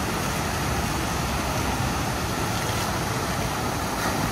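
Steady rush of water pouring from the water-slide exits over rocks and into the splash pool.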